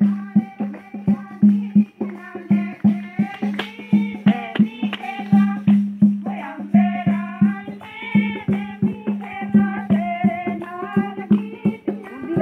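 Hindu devotional song: singing over a steady low drone and a rhythmic beat of about two strokes a second, with rattling shaker-like percussion.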